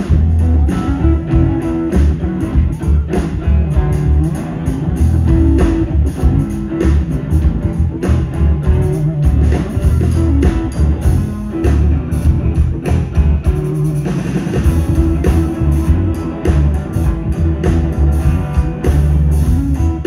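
Live rock band playing through stage amplifiers: distorted electric guitars over a drum kit, with a heavy low end.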